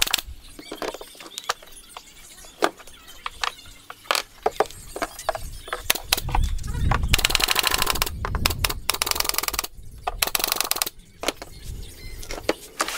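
Pneumatic nail gun firing into plywood: single sharp clacks at irregular intervals, with two stretches of rapid-fire clattering near the middle.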